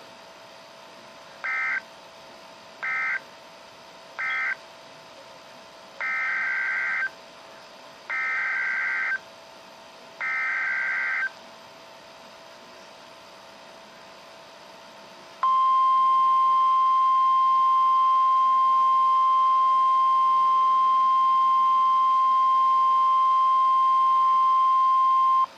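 NOAA Weather Radio alert signalling. First come three short bursts of a buzzy two-pitch data tone, the pattern of the SAME end-of-message code. Then come three longer, one-second bursts of the same tone, the SAME header that opens a new warning, and about halfway through the steady single-pitch 1050 Hz weather-radio warning alarm tone starts and holds for about ten seconds.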